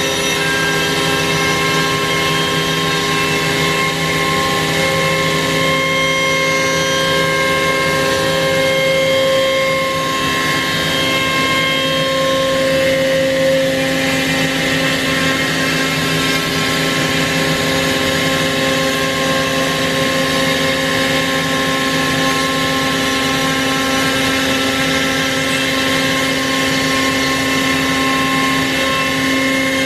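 CNC router running steadily while milling a wooden guitar neck: a constant whine made of several steady tones over a noise hiss, a few of the tones shifting slightly in pitch now and then.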